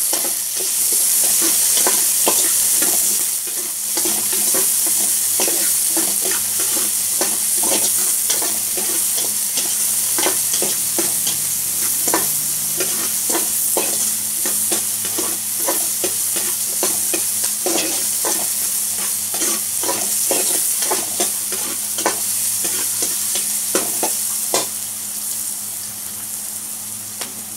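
Ginger, garlic and onions sizzling in hot oil in a metal pot, with a metal spoon stirring them and clinking and scraping against the pot many times.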